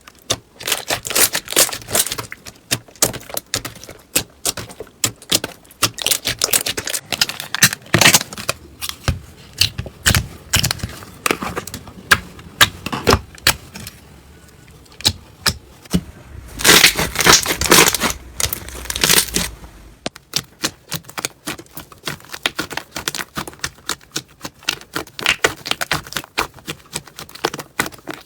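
Slime being worked by hand, giving a rapid, irregular run of crackles and pops, with a dense spell of crackling about two-thirds of the way through.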